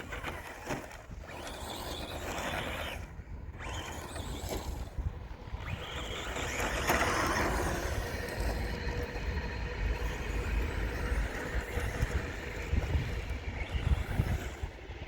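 Mitsubishi Evo 6 Tommi Mäkinen Edition RC rally car's motor whining as it speeds up and eases off, with short dips, running on about 25% throttle. A low rumble underneath.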